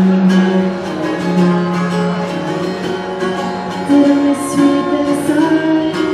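A woman singing long held notes while strumming an acoustic guitar, with the pitch of her notes stepping up about four seconds in.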